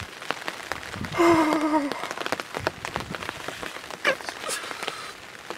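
Light rain pattering, a steady spread of small taps. About a second in, a short wavering vocal sound falls slightly in pitch.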